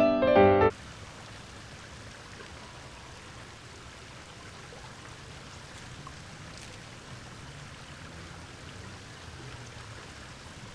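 Piano music breaks off under a second in, leaving a steady, faint wash of running water with a low hum beneath it.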